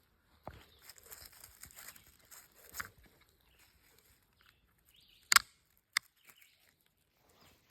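Light rustling and handling noises with small clicks, then a single sharp, loud click a little past five seconds in and a smaller click just after it.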